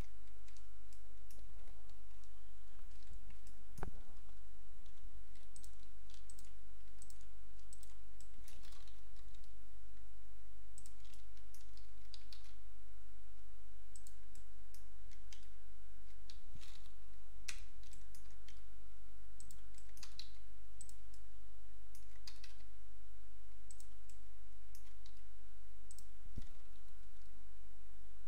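Computer keyboard keys and mouse buttons clicking at irregular intervals as shortcuts are pressed, over a steady low electrical hum.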